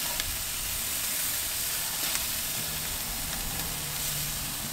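Chicken leg quarters sizzling steadily on the grate of a charcoal drum smoker running at about 450 degrees while sauce is basted on.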